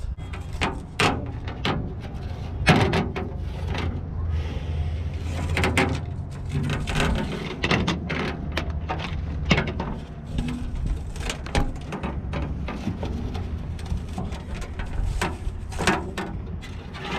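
Old rubber spline and torn screen mesh being pulled out of a metal screen-door frame: irregular clicks, knocks and rattles, with a stretch of scraping and rustling about four to six seconds in.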